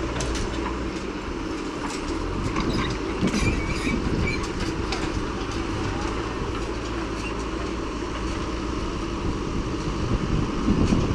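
JCB backhoe loader's diesel engine running steadily under digging load, with tractor engines idling alongside. Clanks and knocks of the steel bucket and boom working the soil come through in the first half, with a brief squeal about three seconds in.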